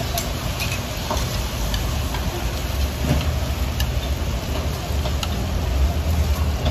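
Steady low rumble with a few light clicks and taps scattered through it: the working background of a breakfast-shop kitchen.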